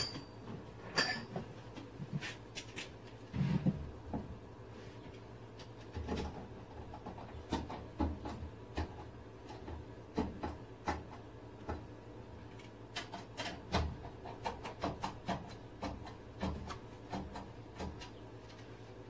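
Metal electrical conduit and its fittings being handled and fitted at the wall: scattered light clicks, taps and knocks, coming more often in the second half.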